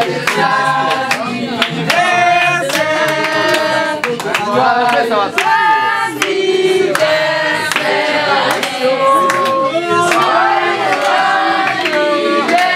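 A group of people singing together in chorus, with hand claps sounding through the singing.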